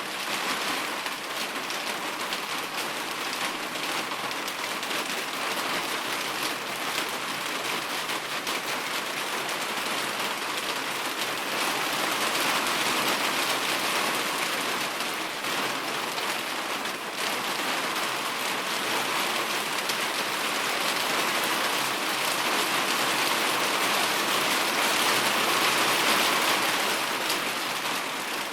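Steady rain falling on hard surfaces, a dense even hiss of many fine drops that fades in at the very start and holds steady.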